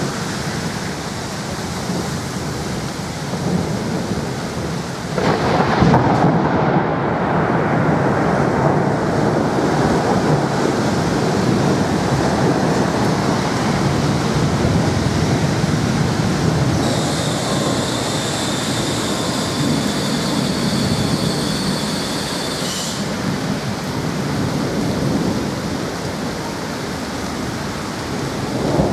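Heavy summer downpour with thunder: about five seconds in a loud rumble of thunder sets in and rolls on, slowly dying away under the steady rain. A thin high whine sounds for about six seconds in the middle.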